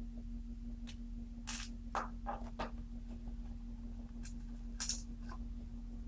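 Scattered light clicks and taps of small parts being handled on a Sony laptop being put back together, about eight over a few seconds, over a steady low hum.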